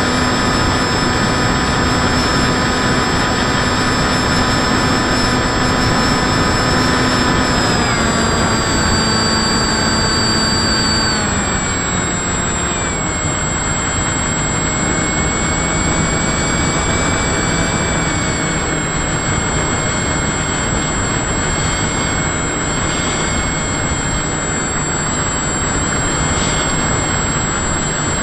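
Motor and propeller of a model aircraft, heard from a camera on board over heavy wind rush. The whine holds a steady pitch, then drops in two steps about eight and eleven seconds in as the throttle comes back, and runs on at the lower pitch.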